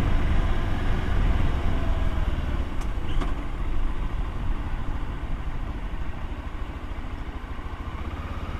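Motorcycle engine running at low revs, easing off and growing gradually quieter, with a couple of light clicks about three seconds in.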